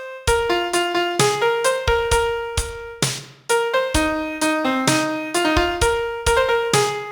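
Piano playing a slow pop-song melody note by note over lower bass notes, with a short break about halfway.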